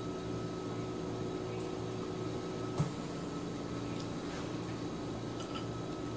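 Steady mechanical hum of a room appliance such as a fan, with a few light clicks of chopsticks against a ceramic bowl and one sharper tap near the middle.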